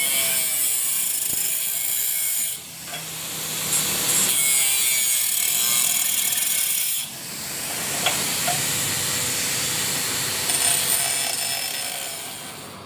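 Angle grinder with a cutting disc slicing through light-gauge steel channel: a steady, high-pitched grinding hiss that drops off sharply twice, about two and a half and seven seconds in, each time building back up within a second or so, then fades near the end.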